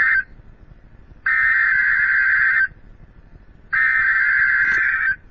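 Emergency Alert System SAME header: loud bursts of digital data tones, the end of one burst and then two more, each about a second and a half long with about a second between them. This is the coded header that opens an EAS alert and triggers receiving stations.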